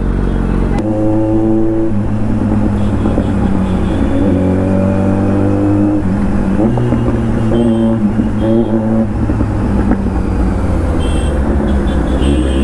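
Kawasaki Z900 inline-four through an SC-Project aftermarket exhaust, riding in city traffic. The engine note rises and falls with the throttle, with a sudden jump in pitch about a second in.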